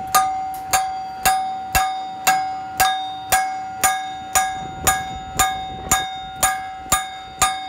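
Steady hammer blows on steel, about two a second, each leaving the perforated steel die plate of a pellet machine ringing with a clear bell-like tone that fades before the next strike.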